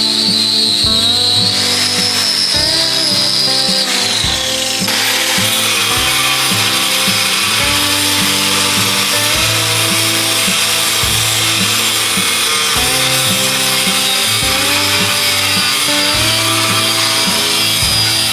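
A power tool running on metal, its high whine dropping in pitch about four seconds in and giving way to a steady hiss, under background music with held notes.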